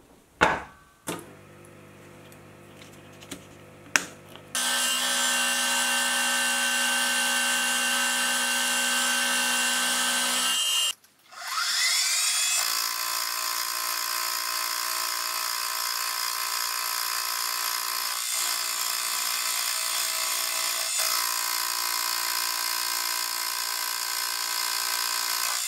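Sieg X2.7L mini milling machine running with a steady high whine, fly-cutting the face of a steel block. About 11 seconds in it cuts out, then spins back up with a rising whine and runs on at a slightly different pitch. A short knock comes near the start.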